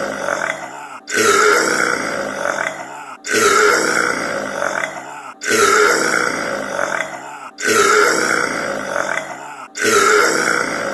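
A man's loud, drawn-out burp, the same clip looped over and over: it restarts abruptly about every two seconds, five times here, each time trailing off just before the next begins.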